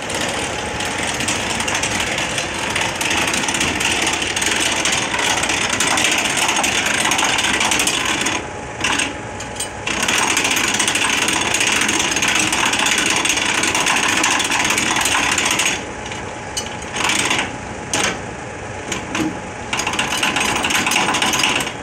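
Container semi-trailer landing gear being wound with a hand crank: a steady mechanical whirring rattle from the leg gearbox as the support legs are lowered. There is a short pause about nine seconds in, then stop-start turns near the end.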